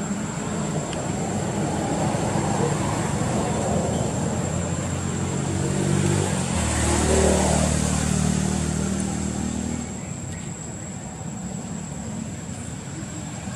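A motor vehicle's engine running steadily off-screen, growing louder about six seconds in and dropping away at about ten seconds.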